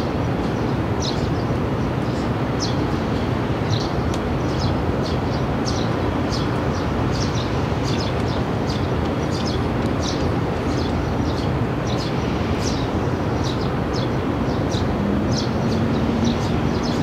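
Small birds chirping, short high calls about a second apart, over a steady low rumble of outdoor background noise.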